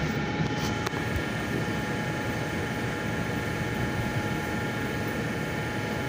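Steady running drone of rooftop air-conditioning machinery, a broad rush with several steady whining tones over it. A single light click about a second in.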